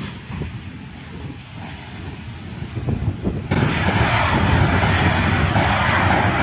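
Jet engines of a Boeing 737-800 on its landing rollout, a steady rumble that about three and a half seconds in turns abruptly into a much louder, even rush that holds.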